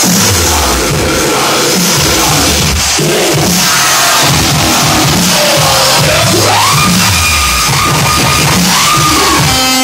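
Loud electronic dance music from a DJ set played over a club sound system, with heavy pulsing bass and a synth line that slides up in pitch about six and a half seconds in.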